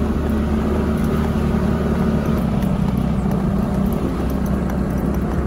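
SYM motorbike engine running steadily under throttle, pulling uphill, with the hiss of riding through the air.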